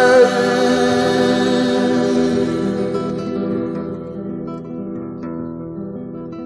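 Song with acoustic guitar: a singer's wavering held note ends just after the start, then the guitar plays on alone, fading gradually.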